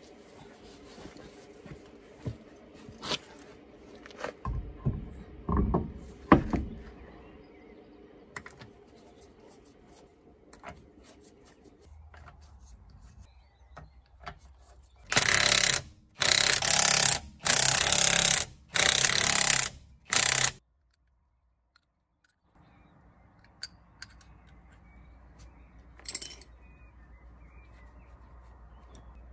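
Cordless impact wrench run in four bursts of about a second each, spinning the wheel bolts home on a refitted road wheel. Before that, a few knocks as the wheel is lifted onto the hub.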